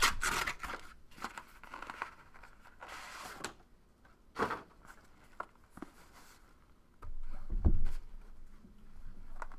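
Packaging being handled and torn open: several short crinkling, tearing rustles, then a low thump about seven and a half seconds in.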